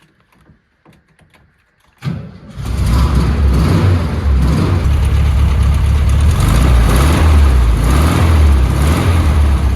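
Volkswagen T2 bus's air-cooled flat-four engine started about two seconds in: brief cranking, then it catches and runs steadily and loudly. This is a test start to check the engine actually runs.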